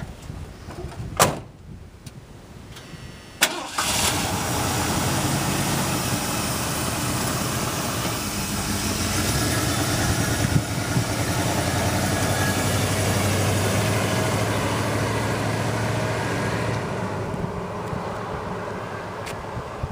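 A sharp knock about a second in, then the 1979 Ford F150's fuel-injected 460 big-block V8 starting and running hard under heavy throttle as the truck drives off. It grows fainter near the end.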